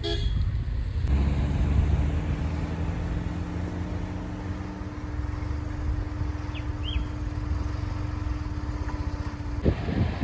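A vehicle's engine idling with a steady low hum, and two short bird chirps about 7 seconds in. Near the end the sound changes to a car driving along a road, with engine and tyre noise.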